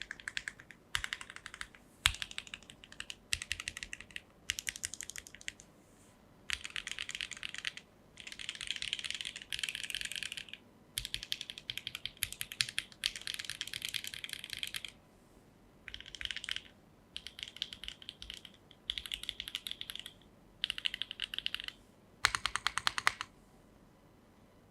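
Fast typing on a Neo80 mechanical keyboard with HMX Sonja HC switches, on a carbon-fibre plate with gasket mount and no foam. Rapid keystrokes come in bursts separated by short pauses, and the typing stops shortly before the end.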